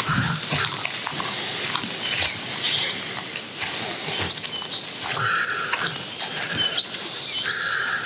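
Footsteps rustling through long grass and bird seed being put into a wooden feeder tray: a run of short scrapes and rattles. Small birds chirp now and then in the background.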